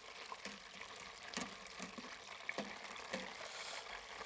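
Battered chicken tenders deep-frying in hot oil held at about 350 °F: a steady sizzle, with scattered small clicks and taps as a wire spider strainer is worked through the oil to lift them out.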